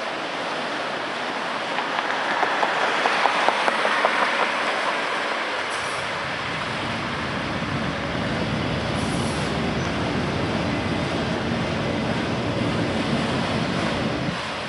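Autorack freight cars rolling past, steel wheels running on the rails with a steady noise. A run of sharp clicks comes from about two to five seconds in.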